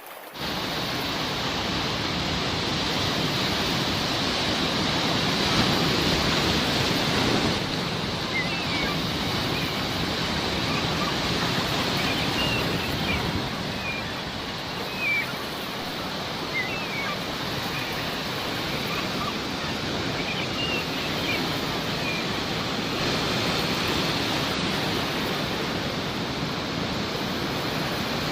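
Sea surf washing in a steady rush, with short seagull calls now and then through the middle of the stretch.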